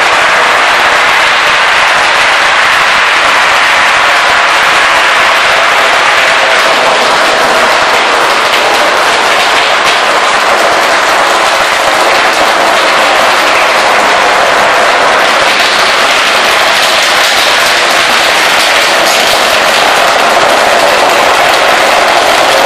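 Bubble wrap popping under a forklift's tyres as they roll slowly over long strips of it: a loud, dense, unbroken crackle of many small pops.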